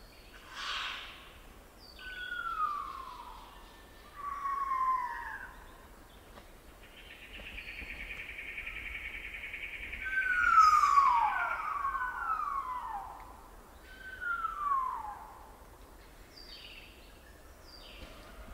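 Satin bowerbirds giving their descending 'falling bomb' whistles, about six clear downward-sliding whistles, three of them overlapping in quick succession midway. A harsh, rasping buzz runs under the middle of the sequence.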